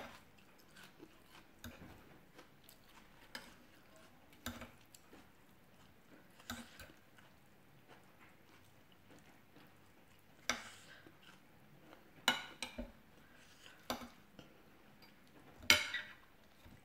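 Metal fork and spoon clinking and scraping against a plate at irregular moments while rice noodles are eaten, with quiet chewing between. The clinks come singly and get louder in the second half.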